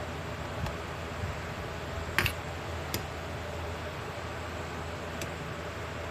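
A metal ladle clinking a few times against a stainless steel soup pot while skimming scum off simmering chicken soup, the loudest clink just after two seconds in, over a steady background hiss.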